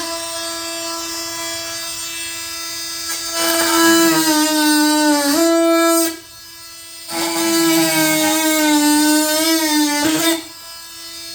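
Milwaukee M18 Fuel 2836 brushless oscillating multi-tool running with a steady buzz, then cutting through lumber. It grows louder and drops slightly in pitch under load in two cuts, with a brief easing between them about six seconds in and again near the end.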